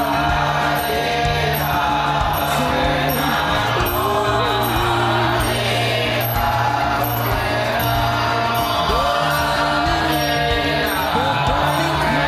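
Buddhist monks chanting together: a steady, droning chant of several voices, with slowly sliding pitches.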